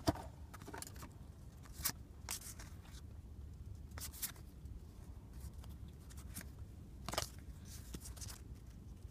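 Football trading cards and their foil pack wrappers being handled: a few short crinkles and rustles, spaced out and faint.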